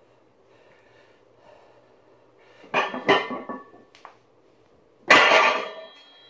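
A trap bar loaded with 312 lb of cast-iron plates, lifted and lowered in a deadlift. The plates clatter as the bar comes off the floor about two and a half seconds in. About five seconds in the bar is set back down with a loud metal clang, and the plates ring briefly.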